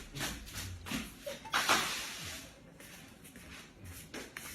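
Faint rustling and shuffling, with one louder swishing rustle about a second and a half in.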